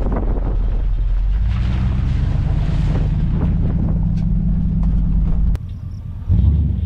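1989 Chevrolet Suburban running, with a steady low engine drone and road noise. It cuts off abruptly about five and a half seconds in, and a low rumble starts again near the end.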